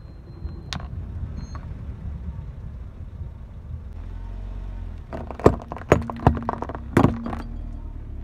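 A car's tyre rolling slowly over small painted clay pots, which crack and shatter in a quick run of sharp snaps from about five seconds in, the loudest near the middle of the run, over the low rumble of the car. A single sharp crack comes a little under a second in.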